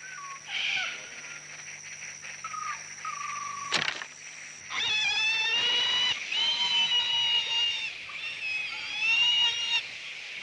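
Wild boar squealing in long, high, wavering squeals that start about five seconds in, just after a sharp snap. Before that there are only faint short whistled calls.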